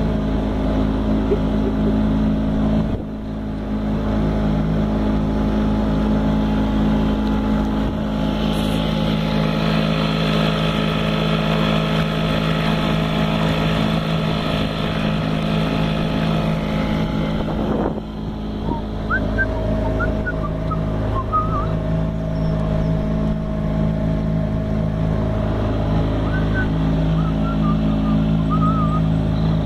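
Suzuki DT3.5 two-stroke outboard motor running at a steady speed, pushing a small boat along. A hiss of water from the wake joins it for about ten seconds in the middle, and the sound dips briefly twice.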